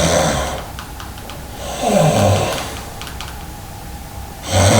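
A man snoring heavily in his sleep: loud rasping snores about every two and a half seconds, with quieter breathing in between.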